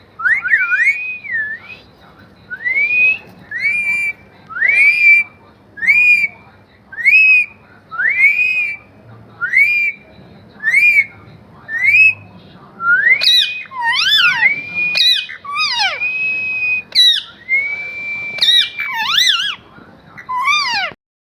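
Pet parrot whistling: a string of short rising whistles about once a second, then longer whistles that swoop up and down in pitch, some held level.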